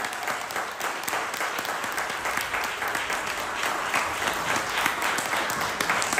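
Audience applauding steadily, growing a little louder in the second half.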